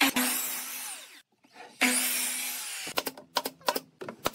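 Sliding compound miter saw cutting through pine board twice; each cut starts loud and dies away after about a second. About three seconds in, a quick series of sharp clacks from a nail gun fastening the pine box.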